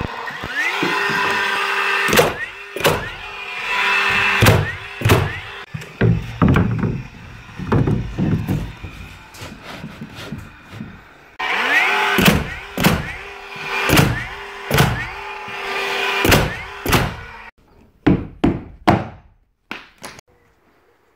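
DeWalt nail gun firing nails in quick succession into shiplap cladding boards, its motor whirring under the shots in two runs. A few lighter knocks come near the end.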